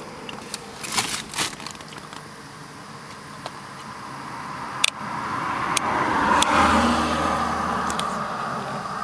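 Road and engine noise heard inside an old Mercedes car on the move, with scattered sharp clicks and rattles. The noise swells about six seconds in.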